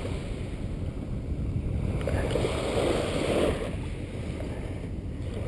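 Wind rumbling on the microphone over small surf washing on the shore, with a louder wash of hiss for about a second around two and a half to three and a half seconds in.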